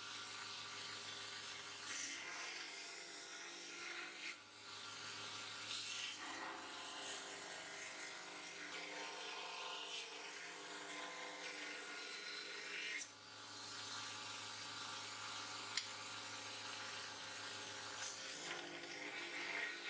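Bench belt grinder running while a spring-steel sword blade is pressed against the abrasive belt to grind its bevel, steady grinding with short breaks about four and thirteen seconds in as the blade is lifted and repositioned.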